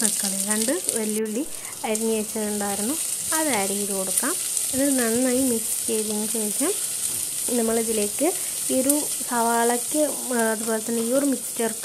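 Sliced onions sizzling as they fry in hot oil in a pot, stirred with a wooden spatula. A pitched, wavering, tune-like sound runs over the sizzle throughout, with short breaks.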